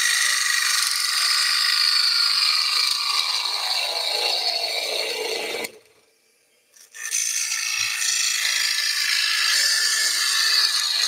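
Bowl gouge cutting across the inside bottom of a wooden bowl spinning on a lathe: a steady hissing rasp with a thin whistle as shavings peel off. The cut stops for about a second a little past halfway as the tool comes off the wood, then starts again.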